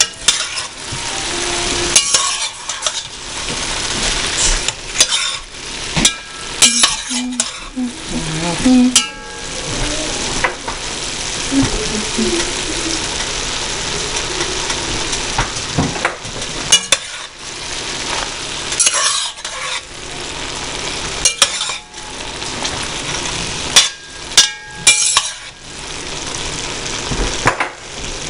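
A spoon stirring and tossing cooked rotini pasta and chicken in an enamelled pot, with irregular knocks and scrapes of the spoon against the pot over a steady hiss.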